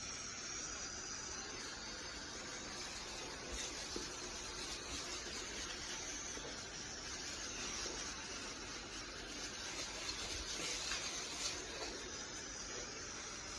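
Steady rushing hiss from power-cleaning equipment working concrete, even and unbroken.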